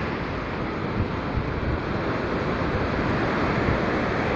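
Sea surf washing steadily on a beach, with wind buffeting the microphone.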